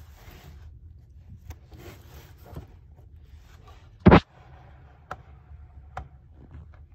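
Handling noise from the recording phone being propped up on a desk: rubbing and scraping, a few light clicks, and one loud thump about four seconds in.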